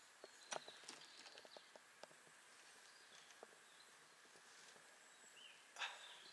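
Near silence: faint outdoor ambience with scattered small clicks and taps, and one brief louder rustling scrape near the end.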